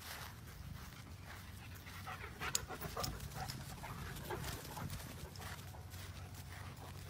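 German Shepherd dog panting, with one sharp click about two and a half seconds in.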